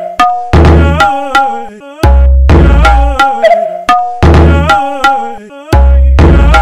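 Brazilian funk instrumental beat: deep bass hits alternating with a looped, pitched melodic sample with sliding notes, the phrase repeating about every two seconds.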